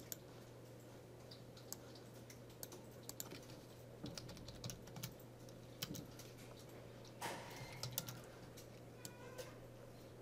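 Faint typing on a computer keyboard: scattered key clicks, a few at a time, as short words are typed in.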